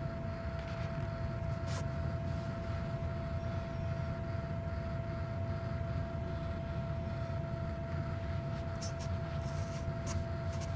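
A steady low machine hum with a constant thin whine over it, and a few faint light clicks about two seconds in and again near the end.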